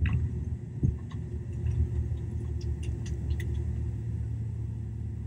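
Airliner cabin noise as the plane rolls on the ground after landing: a steady low rumble of engines and wheels, with a thump at the start and another just under a second in.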